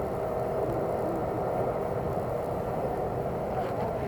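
Steady low rumble of outdoor background noise with a faint hum, unchanging throughout.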